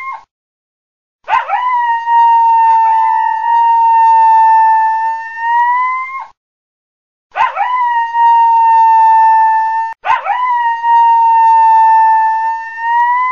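Coyote howling: long, level-pitched howls, each starting with a quick wavering note and ending with a slight upward lift. After a brief silence come three howls, the first about five seconds long, the next two nearly back to back.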